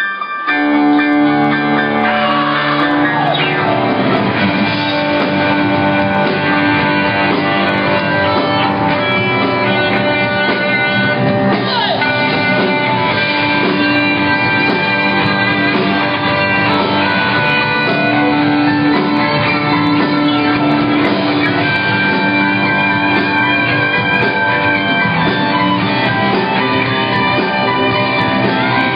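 Live rock band playing loud, with guitars to the fore, heard through a phone's microphone from within the crowd. The full band comes in about half a second in and keeps going.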